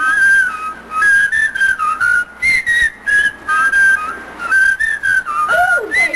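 A tune being whistled, a steady melody of held notes stepping up and down in pitch.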